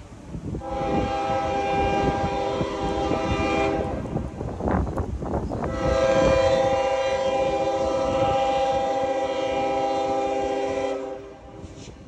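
Diesel freight locomotive horn sounding two long blasts with a short break between them, the start of the grade-crossing signal as the train approaches.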